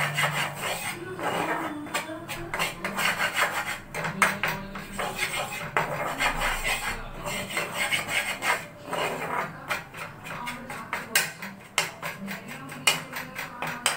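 A spatula scraping and stirring gram flour and chilli powder around a frying pan, a quick, continuous run of rasping scrapes against the pan. The flour is being roasted in a little oil until it smells fragrant.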